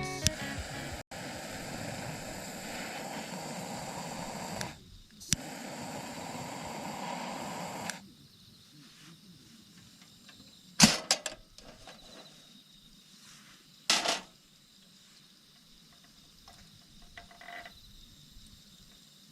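Campfire burning: a steady rushing noise for about eight seconds, then much quieter with a few faint crackles and two sharp knocks, like wood being placed or struck.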